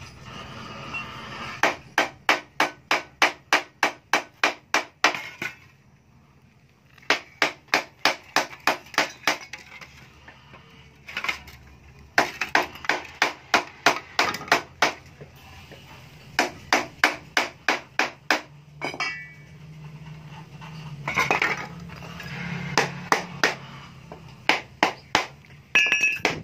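Hand hammer striking the split-open sheet-steel shell of a stock two-stroke Yamaha exhaust. The metallic, ringing blows come in quick runs of about three a second, with short pauses between the runs.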